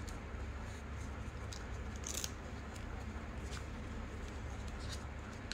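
A sheet of paper being folded and creased by hand: a few short crinkles and rustles, the loudest about two seconds in, over a steady low hum.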